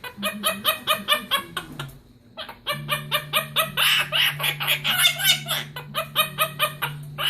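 Quaker parrot (monk parakeet) chattering in a fast run of short repeated calls, about seven a second, with a brief pause about two seconds in.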